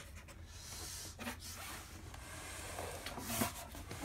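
A fingertip rubbing and scraping over the rear panel of a Sansui AU-D607F amplifier, with a light knock about a second in and a louder one near the end as the unit is handled.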